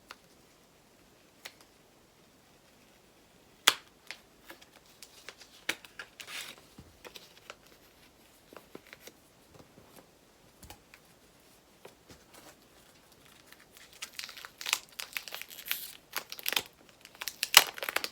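A blind-packet wrapper being peeled open and handled by hand. Scattered small clicks and rustles come first, then a dense run of crinkling and tearing over the last few seconds.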